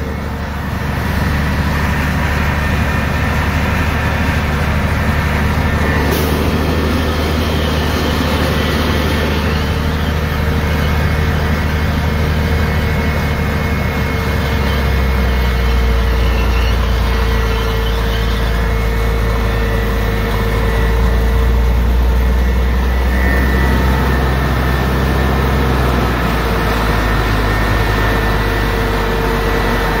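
Truck engine running steadily under way across a field, heard from inside the cab. About halfway through the engine note changes and a deeper rumble takes over.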